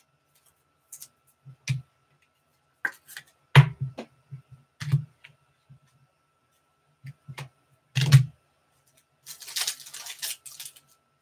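Scattered taps and knocks of trading-card packs being handled on a table, then from about nine seconds in the dense crinkling tear of a card pack's wrapper being ripped open. A faint steady high tone runs underneath.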